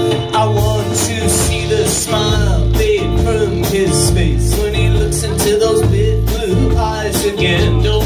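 A rock band playing live, with electric guitars over a steady drum beat, heard from the audience in the club.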